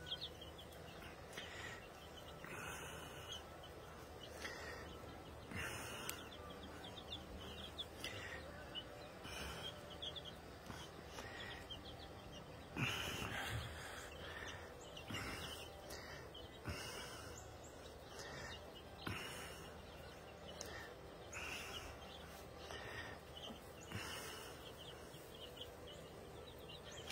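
A flock of three-week-old chicks (White Leghorns, Domineckers, Barred Rocks) peeping faintly and on and off over a light steady outdoor background noise, with a somewhat louder burst about halfway through.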